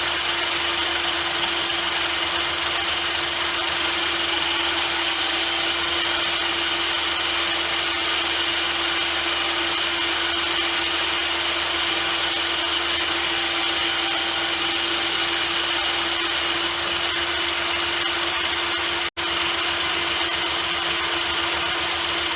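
Small electric grinding tool running steadily at constant speed, grinding down a steel torsion wrench to make it thinner. The sound drops out for an instant about nineteen seconds in, then carries on unchanged.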